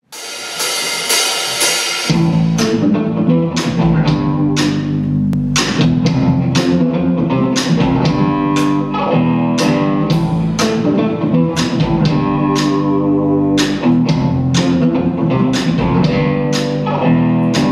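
Rock band playing a song's instrumental intro live on electric guitar, bass guitar and drum kit. It opens with about two seconds of high ringing that swells up; then bass and drums come in with a steady beat of sharp drum and cymbal hits about twice a second under sustained guitar chords.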